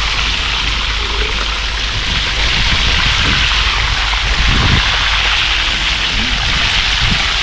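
Whole fish frying in hot oil in a cast-iron skillet: a steady sizzle.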